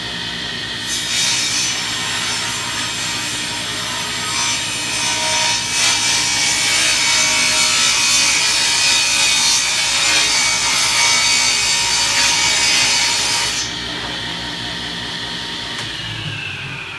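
Grizzly G0715P 10-inch hybrid table saw running, its blade cutting through a board from about a second in until near 14 seconds. It then runs free and begins to wind down near the end.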